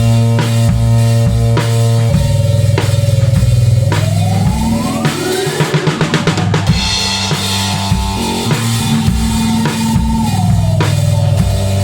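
A band playing loud live music: a drum kit keeping a steady beat of bass drum and snare under sustained pitched instrument tones. About halfway through the pitch slides upward over a quick run of drum strokes, and near the end a tone slides back down.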